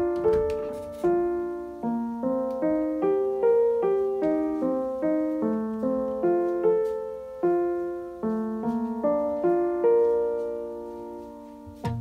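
Background music: a solo piano playing a gentle melody of struck notes over chords, with a last held note fading away near the end.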